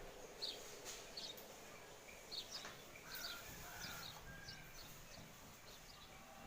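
Faint, scattered bird chirps, short high notes every so often with a few brief whistled notes in the middle, over a low steady outdoor background hiss.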